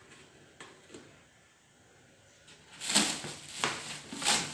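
Plastic being handled: a couple of faint clicks, then from about three seconds in, several loud bursts of crinkling and rustling as a plastic jug and the plastic bag around it are handled.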